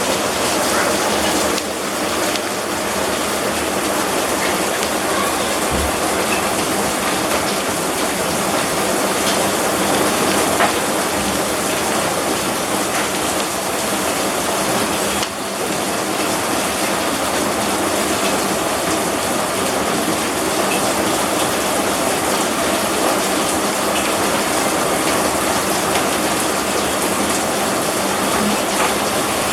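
Heavy downpour of rain and hail, a dense steady rush with scattered small sharp ticks.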